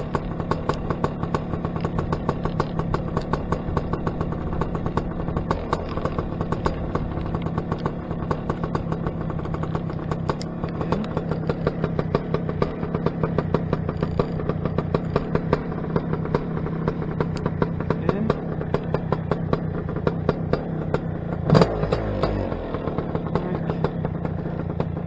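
Paramotor engine and propeller running steadily at flying power, a constant drone with fine rapid ticking. One sharp knock near the end.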